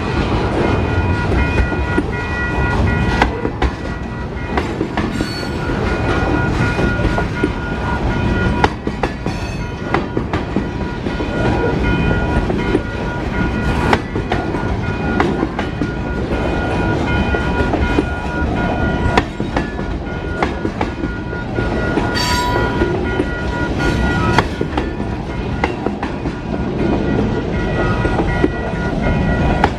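Freight train cars rolling past close by: a steady heavy rumble with repeated clacking of steel wheels over the rail joints. A steady high ringing tone runs through it.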